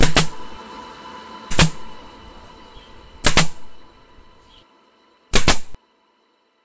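Meite staple gun firing staples through carpet into the rim of a PVC subwoofer tube: four sharp shots, about 1.7 s apart.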